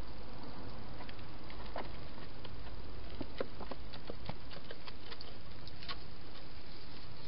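Scattered small clicks and taps from a wild hedgehog feeding and moving about inside a clear plastic feeding box, thickest about three to four seconds in as it heads for the exit, over a steady hiss.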